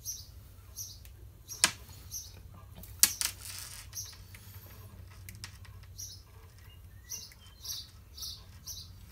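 Quick runs of short, high squeaks, about three a second, from thick 100 lb nylon monofilament and plastic tubing rubbing as the tubing is slid down the line by hand. Two sharp clicks, about a second and a half and three seconds in.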